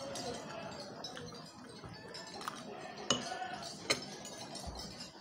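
Light clinks and clicks of bamboo satay skewers knocking against a clay dish as they are handled, with three sharper clicks in the second half.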